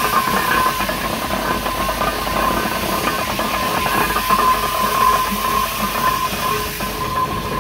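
Fowler Class Z7 steam ploughing engine running under steam: a steady mechanical clatter with steam hissing, and a thin steady high tone running through it.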